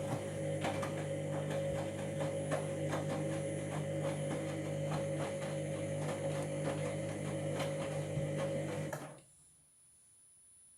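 Washing machine drum turning during the wash, its motor running with a steady hum and a rapid patter of ticks and clicks from the drum, then cutting off abruptly about nine seconds in as the drum stops. The owner suspects worn drum bearings.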